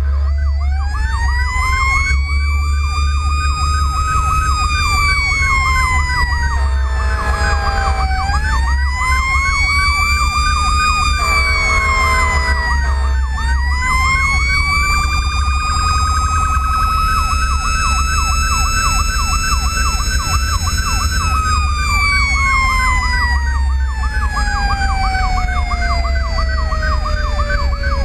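Fire apparatus warning sirens while responding: a mechanical siren winds up and coasts down in long, uneven rises and falls, over an electronic siren yelping rapidly. Horn blasts come twice, about seven and twelve seconds in, with the truck's engine and road noise running underneath.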